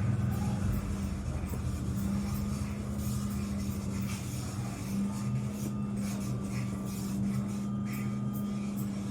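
A steady low mechanical hum with a faint high tone and scattered light clicks and taps.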